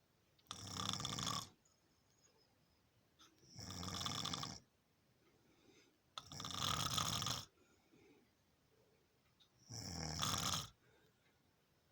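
A sleeper snoring: four snores about three seconds apart, each lasting about a second.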